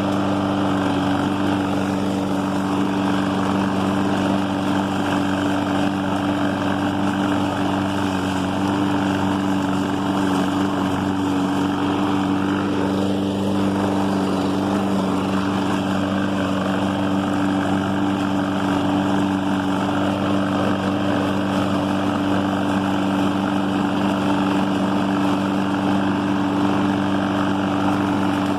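Husqvarna all-wheel-drive walk-behind lawn mower's Briggs & Stratton single-cylinder engine running steadily at an even speed, just after being started.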